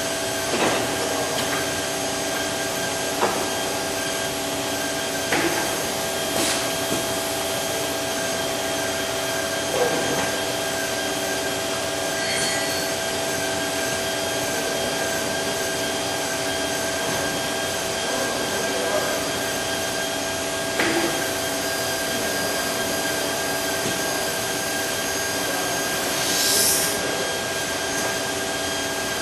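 Amada Wasino Meister G3 CNC surface grinder running with a steady hum that carries several constant whining tones. Its automatic loader makes occasional short clicks and clunks, and a brief hiss comes near the end.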